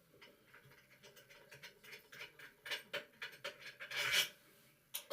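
Rapid scratching and clicking of hand work on a Gerber faucet's metal trim and cartridge, growing busier from about two seconds in and peaking in a loud scrape about four seconds in.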